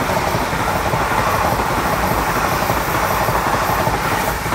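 East Midlands Railway Class 360 electric multiple unit passing through the station at speed: a loud, steady rush of wheel and rail noise that begins to die away near the end as the last coaches go by.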